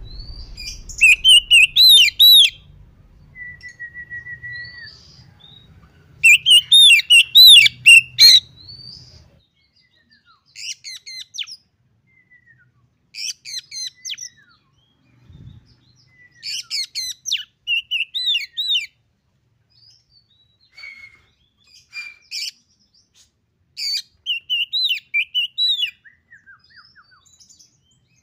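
Oriental magpie-robin (kacer) singing: short bursts of quick, rising-and-falling whistled phrases separated by pauses, loudest in the first eight seconds and softer afterwards.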